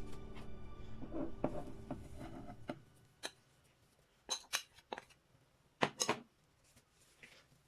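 Background music that stops about two and a half seconds in, followed by a few sharp clinks of kitchen utensils against dishes, the loudest pair near the end.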